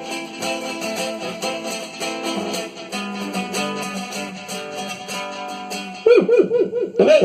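Guitar-led instrumental music of a song's closing bars. About six seconds in, the music stops and a person's voice breaks out much louder in quick, repeated rising-and-falling notes, likely laughter.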